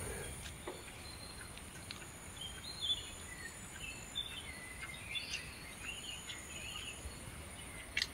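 Faint outdoor evening ambience: a steady high insect drone, with scattered short bird chirps and a few soft clicks.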